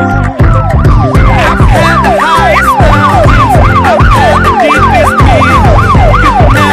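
Electronic yelp siren, its pitch sweeping up and down about three times a second, starting just after the beginning, over music with a heavy beat.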